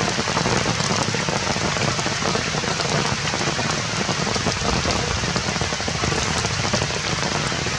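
Steady rain falling: a dense, even hiss with scattered small drop taps.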